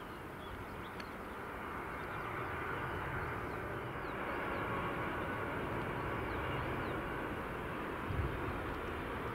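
Jet engine noise from a landing Boeing 777-300ER's GE90 turbofans: a steady rumble and hiss that swells over the first few seconds as the airliner comes close on short final. A brief low thump comes about eight seconds in.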